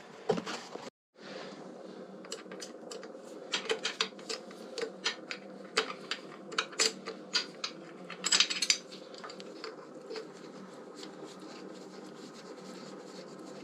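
Metal hand tools clicking and clinking against a Harley-Davidson Evolution engine while the cylinder bridge is taken off: irregular sharp taps, with a quick flurry a little past the middle, over a steady low hum.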